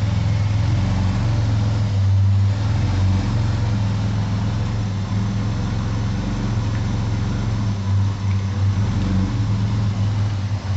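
Chevrolet Omega 3000's 3.0 straight-six idling steadily, its rebuilt alternator running quietly without the growl it had before its bearings were replaced.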